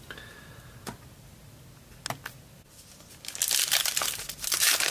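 A wrapper on a pack of Select Prestige trading cards crinkling and tearing as it is pulled open, starting a little over three seconds in. Before that there are only a few faint clicks and taps.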